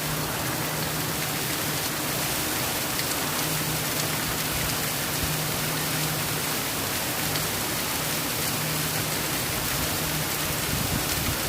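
Steady rain: an even, dense hiss of falling rain with scattered sharper drop ticks.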